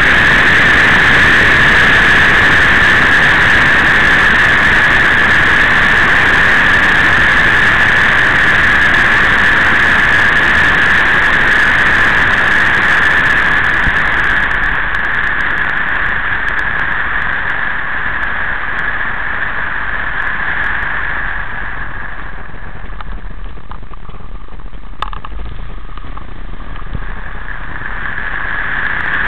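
Motorcycle on the move: a loud, steady rush of wind and riding noise on the onboard microphone, with a steady high whine running through it. It eases off for a stretch through the middle and builds again near the end.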